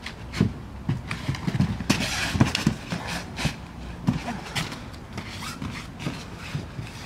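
Bare feet and bodies thudding and scuffing on foam floor mats as two dancers shift weight, step and land, in irregular soft thumps that are densest in the first few seconds, with clothing rustle between them.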